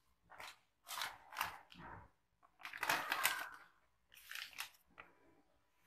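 Short crunching and rustling handling noises, five or six in all, the longest and loudest about three seconds in, from hands working with squares of milk chocolate on a plastic cutting board.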